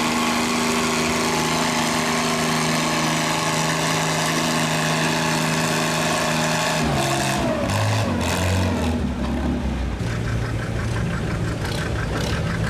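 Farm pulling tractor's engine running at a steady high pitch, then about seven seconds in its pitch falls as it throttles back, settling into a lower, uneven run.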